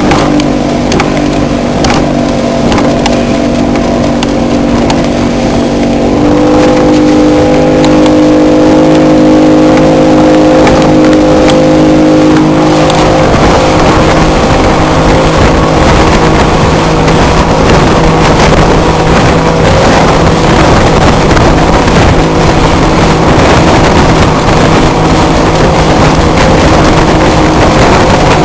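Outboard engine of a 17-foot Key West center-console boat running steadily under way in rough water. About halfway through, a loud rush of wind and water spray takes over, with the engine hum still under it.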